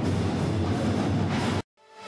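College pep band playing in the stands, with sousaphones, trumpets and drums, cut off abruptly about one and a half seconds in.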